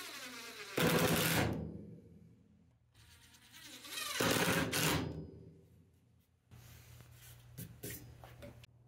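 Cordless impact driver sinking two 1 1/4 inch drywall screws into a pine board, two bursts of rapid hammering about a second long each, a few seconds apart.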